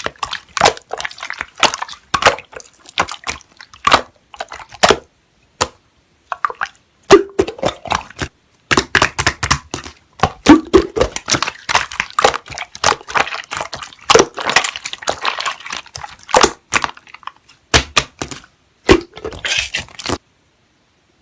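Slime being squished and pressed by hand, making dense, irregular crackling clicks and pops with wet squishes. It stops abruptly about twenty seconds in.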